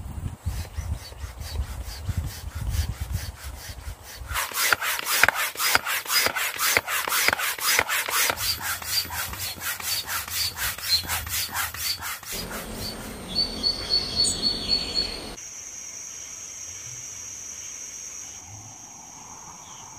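Hand-operated air pump inflating an air mattress: rapid, regular pumping strokes, each a rasping rush of air. About three quarters of the way through it gives way to a steady high-pitched insect drone of crickets at night.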